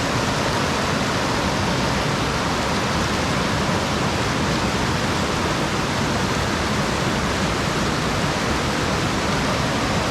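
Two mountain creeks rushing together over rocks where they meet, a loud, steady roar of churning water.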